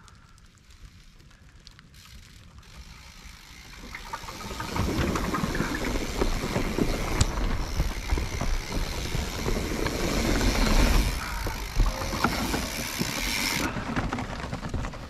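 Mountain bike rolling over rough trail: rumbling tyres and a busy rattle of clicks and knocks. It is quiet at first and gets much louder about four to five seconds in.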